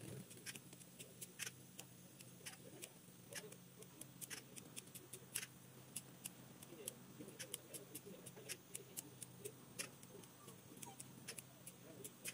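Hand pruning shears snipping twigs off a variegated willow shrub (Salix integra), heard faintly as irregular sharp clicks, about two or three a second.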